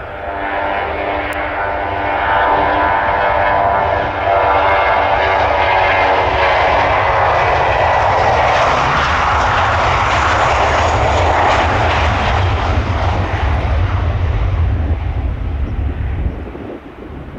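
Airbus A320's twin jet engines at takeoff thrust. The sound rises about a second in as the engines spool up, a whine over a roar, and is loudest as the airliner rolls past on its takeoff run. It drops off near the end as the jet lifts off and climbs away.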